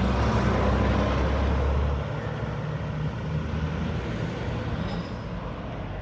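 Mack front-loader garbage truck's diesel engine running as the truck passes close by and pulls away. The low drone is loud at first and drops off about two seconds in, leaving a quieter, steady rumble.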